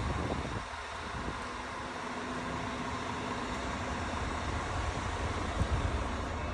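Steady low rumble of an idling coach's diesel engine, with a faint steady hum joining about a second in.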